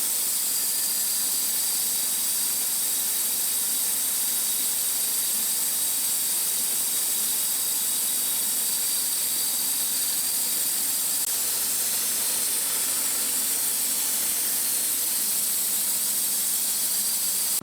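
Homemade band sawmill cutting through a red maple burl: a steady, high-pitched hiss with a faint whine.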